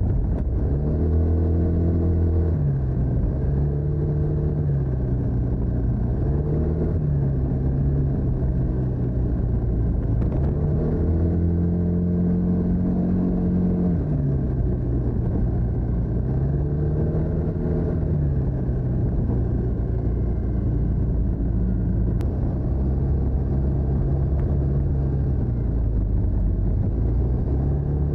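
TVS NTorq 125 scooter's single-cylinder engine through its stock exhaust, running while under way. The pitch rises and falls several times as the throttle is opened and eased, with a longer, higher pull about midway, then it settles to a steady lower note for the last third.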